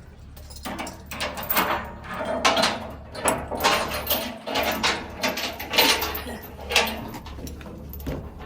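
Heavy steel tie-down chain clanking and scraping against metal as it is handled and hooked while securing a combine to a trailer, in a run of irregular rattles over a steady low hum.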